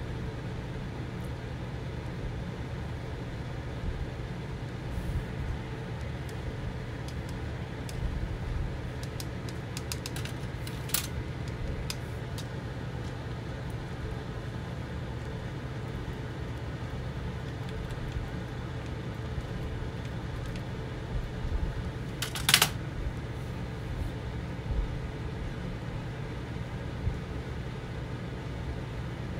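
Steady low mechanical hum of room background noise, like a running fan, with a few light clicks and taps scattered through it and one sharper click about two-thirds of the way in.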